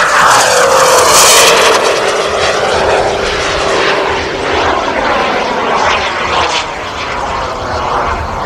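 Paritech Natrix RC model turbine jet making a fast low pass, its turbine whine dropping in pitch as it goes by, with a loud jet rush that is loudest in the first two seconds. The sound then fades slowly as the jet climbs away.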